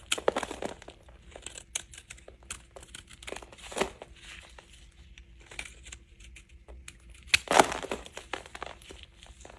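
Dry bar soap being cut with a knife: crisp crackling and scraping in irregular bursts, the loudest about seven and a half seconds in.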